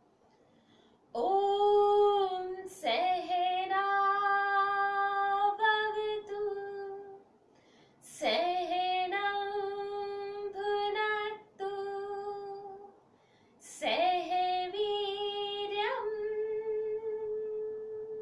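A woman chanting Om three times in a row. Each chant is a long note held on one steady pitch, with a short breath between chants. The last one is closing into a humming 'mm'.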